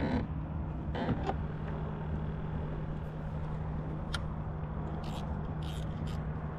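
Steady low engine hum holding one pitch, with several short, sharp clicks and taps over it.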